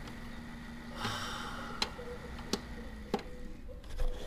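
Open desktop computer running with a steady low hum, over which come a few sharp, irregularly spaced clicks, the loudest near the end.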